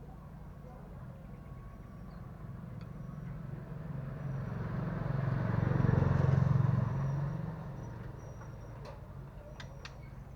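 A road vehicle driving past: a low rumble that grows louder to a peak about six seconds in, then fades away.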